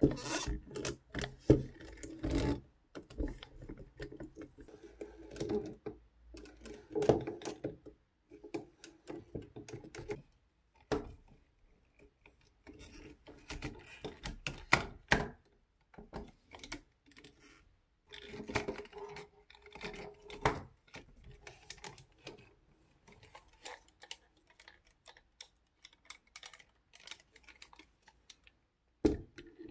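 Hands handling a resin ball-jointed doll and its packaging: irregular small clicks, taps and rustles, coming in clusters with short quiet gaps.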